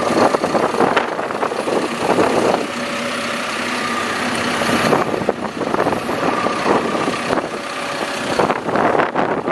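Cat 420F backhoe loader's diesel engine running steadily.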